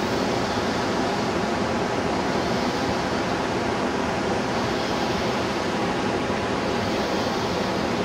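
Waterfall heard from its lookout: a steady, even rushing noise with no breaks.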